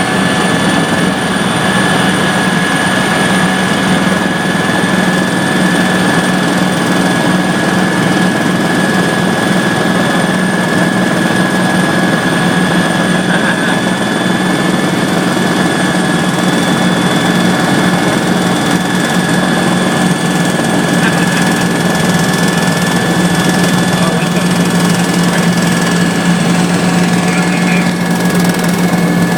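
Helicopter engine and rotor running steadily in flight: a constant loud drone with a steady high-pitched whine over it.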